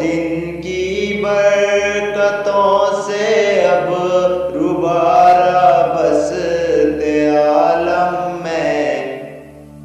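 Solo voice singing an Urdu naat in long, ornamented, melismatic phrases over a steady low drone. The singing trails off near the end.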